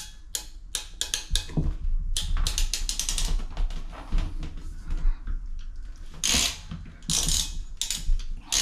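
Hand PEX crimp tool ratcheting closed on a crimp ring over the pipe at a water valve fitting: a run of quick clicks, with two longer rasping bursts near the end as the jaws are squeezed tight.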